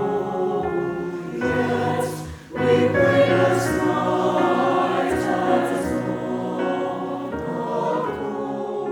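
A high school choir singing in sustained chords, many voices together, with a short break about two and a half seconds in.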